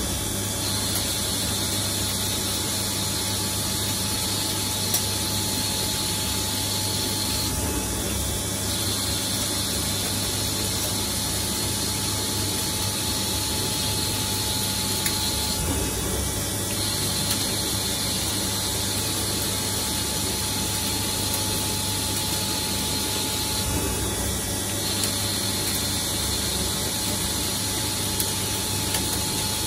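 CNC lathe turning steel, a steady mechanical running sound with a low hum and a constant mid-pitched tone. A high whine drops out for about a second roughly every eight seconds, as the machine repeats its cutting passes.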